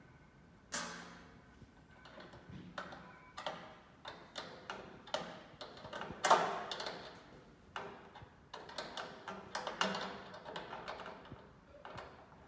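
Irregular clicks, taps and knocks of a heavy battery cable and its terminal hardware being handled and fitted at a battery terminal, with the loudest knock about six seconds in.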